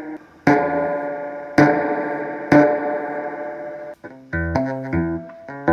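Electric guitar played through a Fender Twin Reverb tube amplifier as a test after repair. Three chords are struck about a second apart and each is left to ring out, then short, choppy chords follow from about four seconds in.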